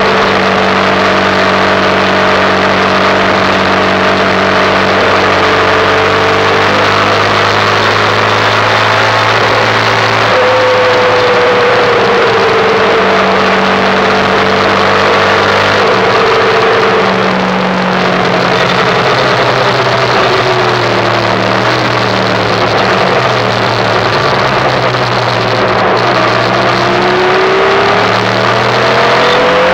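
Derestricted 2005 Yamaha YBR 125's single-cylinder four-stroke engine running on the road. Its pitch sinks as it eases off in the middle and climbs again as it accelerates near the end, over steady wind and road noise.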